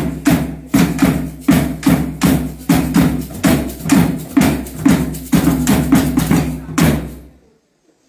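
Hand drum beaten in a steady rhythm, about two and a half strokes a second, each stroke sharp with a low ring. The drumming stops abruptly about seven seconds in.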